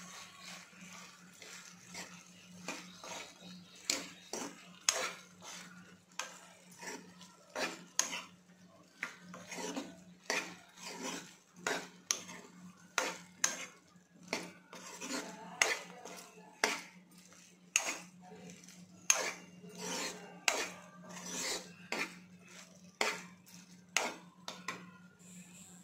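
Steel spoon stirring okra in a kadai, knocking and scraping against the pan about once or twice a second, over a steady low hum.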